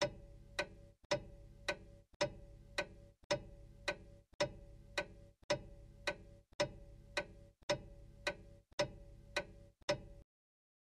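Steady clock-like ticking, a little under two ticks a second, alternating stronger and weaker like a tick-tock, each tick with a brief ring. The ticking stops shortly before the end.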